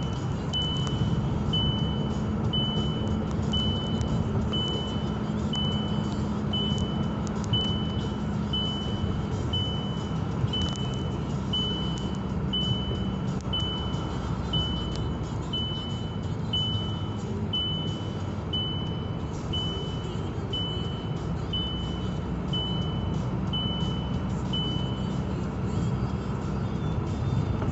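Car engine and tyre noise heard from inside the cabin while driving slowly, with a high dashboard warning chime beeping steadily about once every 0.8 seconds until it stops shortly before the end.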